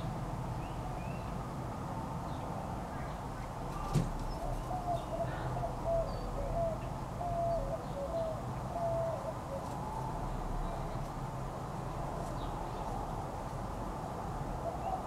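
A dove cooing in the background: a run of soft, low notes from about four and a half to nine and a half seconds in. Small birds chirp faintly now and then, and there is a single sharp click about four seconds in.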